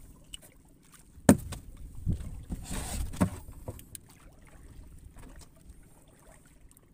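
Knocks and thumps aboard a small wooden outrigger fishing boat: one sharp knock about a second in, then several dull thumps with a brief rush of noise around two to three seconds in.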